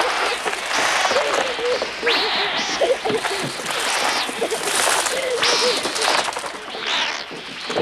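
A flock of crows attacking, their harsh, screeching caws coming in loud repeated bursts about once a second over flapping wings, with wavering screams and cries from children.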